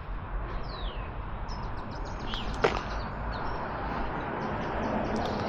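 Outdoor ambience of a steady hiss and low rumble, like distant road traffic, with a few short high bird chirps and one falling whistle. A single sharp click stands out about two and a half seconds in.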